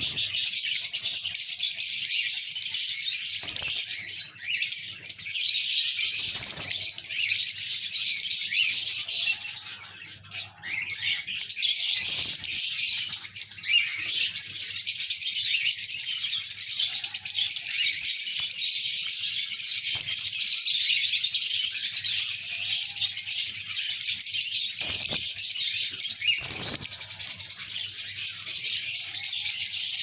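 Lovebirds chattering: a steady, dense, high-pitched chirping that keeps on almost without a break, dipping briefly about four seconds in and again around ten seconds in.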